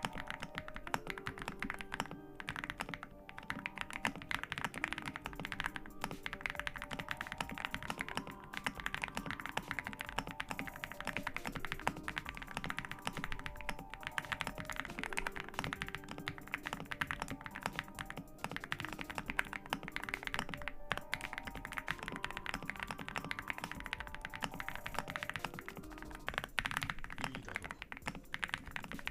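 Rapid typing on a Wobkey Crush80 custom mechanical keyboard with hand-lubed HMX Frost Jade linear switches: a dense, fast run of key strokes, over background music with a melody.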